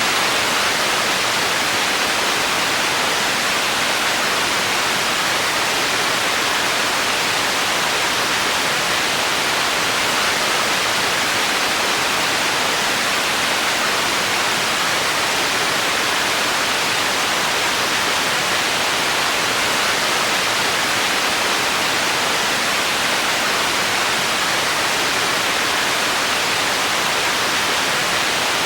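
Untuned television static: a steady, unchanging hiss of noise with no signal.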